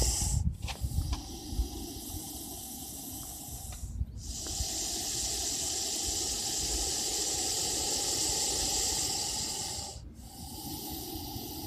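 Russell's viper hissing loudly in long, drawn-out hisses, each lasting several seconds, with short breaks about four seconds in and again near ten seconds; the middle hiss is the longest and loudest.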